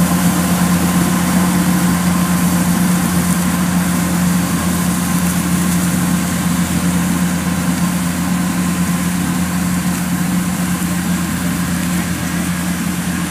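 Kubota DC105X rice combine harvester running under load as it cuts and threshes rice: a steady diesel engine drone with a strong low hum and the rush of the threshing and straw discharge, easing off slightly toward the end.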